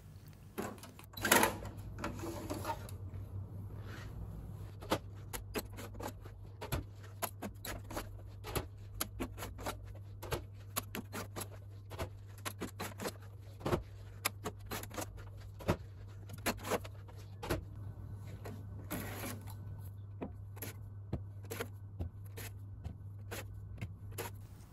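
Server chassis parts being handled: many irregular clicks and clacks of latches and metal parts as modules are unlatched and pulled from the bays, with a couple of longer sliding scrapes, over a steady low hum.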